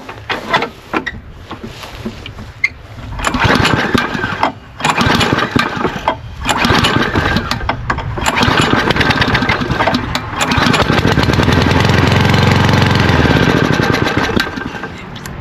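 Petrol lawnmower engine being pull-started: a few strokes of the recoil starter, then the engine catches about three seconds in, cuts out briefly twice, runs for several seconds and dies away near the end. It will not keep running, which the owner takes for a carburetor clogged with dirt inside.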